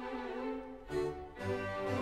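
Instrumental music on bowed strings, violin with low cello-like notes, playing a melody of held notes that change every half second or so.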